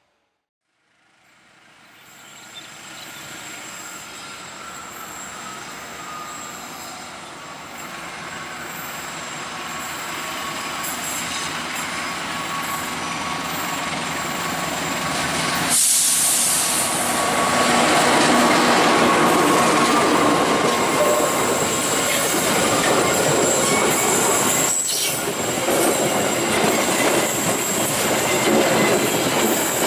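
Diesel-electric locomotive hauling a passenger train, approaching on a curve and growing steadily louder. It passes close about halfway through, and the coaches then roll by loudly, the wheels giving a thin high squeal over the rolling noise.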